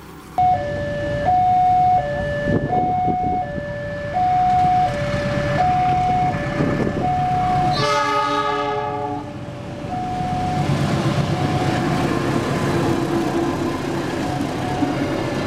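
Railway level-crossing warning alarm sounding a two-tone electronic signal that alternates between a higher and a lower pitch about every 0.7 s. About eight seconds in, an Indonesian locomotive's horn gives one long blast that falls slightly in pitch as it passes. After that the rumble of the passing train builds under the alarm.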